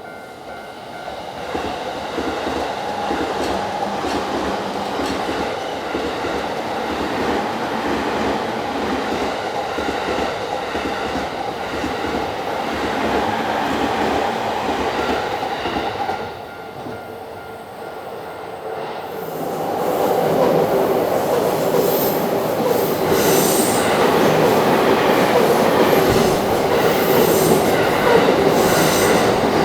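Electric passenger trains passing over a level crossing, wheels rolling and clattering on the rails. One train passes for about fifteen seconds, there is a short lull, then a second, louder passage with high-pitched wheel noise builds from about two-thirds of the way in.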